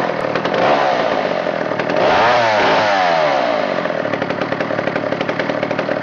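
McCulloch 797 chainsaw's 123 cc two-stroke engine running. About two seconds in it is revved briefly, the pitch rising and falling back, then it runs steadily again.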